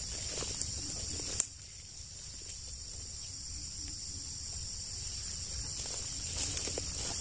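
Steady high-pitched insect drone in dense vegetation, with a few sharp snaps and rustles of undergrowth as someone moves through the brush. The loudest snap comes about a second and a half in.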